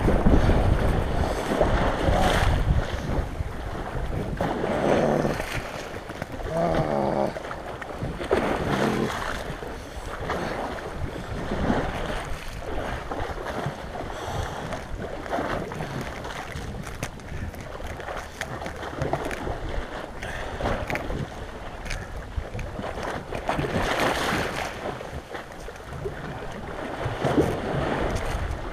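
Small sea waves washing over an icy, slushy shore, with wind buffeting the microphone in uneven gusts.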